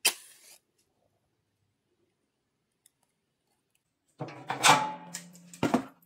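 Striking a light to set the crumpled egg-carton kindling in a fireplace stove alight: a short sharp strike at the start, a long pause, then a rasping strike and a loud sharp click near the end.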